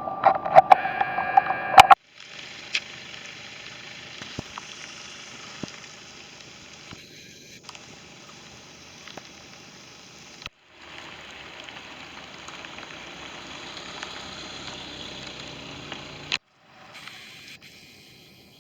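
Heavy rain hissing steadily with scattered sharp ticks of drops striking, the stretch broken by abrupt cuts. The first two seconds are louder, with a clatter of sharp knocks.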